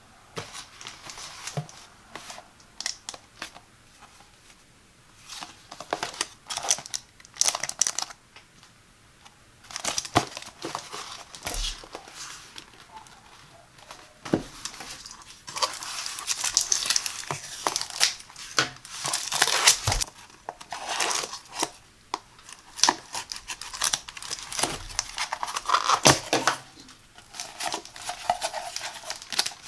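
Hands handling and opening a corrugated cardboard mailer box: scratching, tapping and sliding on the cardboard, with stretches of tearing and crinkling as the box is pulled open. The sounds come in irregular bursts with a few short pauses.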